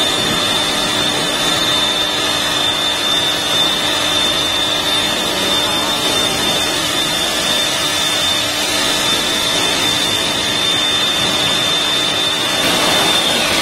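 ABW VGS 70 high-pressure washer running steadily: a constant high whine with the hiss of its water jet spraying a scooter's bodywork. The hiss grows brighter near the end.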